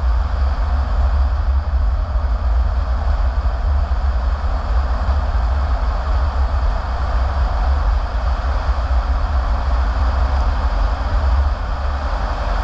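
A car driving on a paved road: steady low road and engine noise, even throughout with no distinct events.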